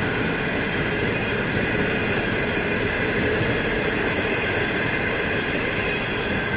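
Original green-livery 25G passenger coaches of a China Railway train rolling past: a steady noise of wheels running on the rails, with faint steady tones over it.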